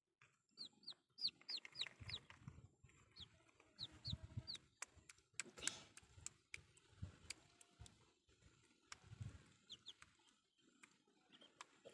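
A chick peeping in short falling chirps, a few in quick runs early on and again near the end, over soft low squelches and knocks of hands and toys working in wet mud.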